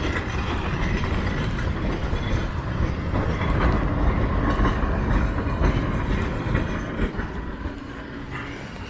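Low rumble of a heavy vehicle passing on a wet street, dying away near the end.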